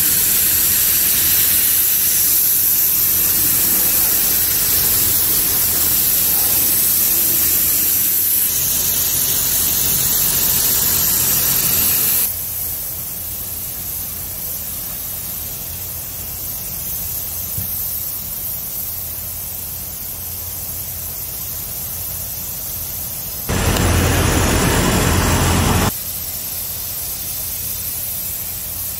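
DeVilbiss paint spray gun with a 1.4 tip hissing as compressed air atomises single-stage paint: a long spray that cuts off about twelve seconds in, then a steady lower hiss, then a second spray of about two and a half seconds near the end.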